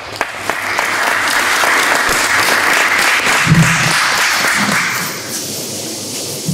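Audience applauding. The clapping builds up over the first second, holds steady, then dies away about five seconds in.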